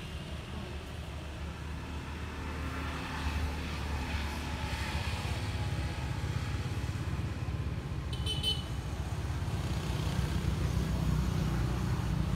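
Low, steady rumble of motor traffic that grows a little louder partway through, with a brief high-pitched tone about eight seconds in.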